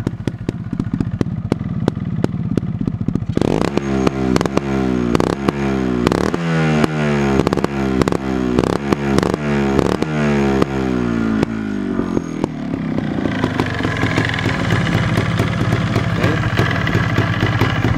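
Montesa 260 trial bike's big-bore single-cylinder two-stroke engine, freshly rebuilt and still cold: it runs for a few seconds, is then revved up and down in quick repeated throttle blips for about eight seconds, and settles back into steady running.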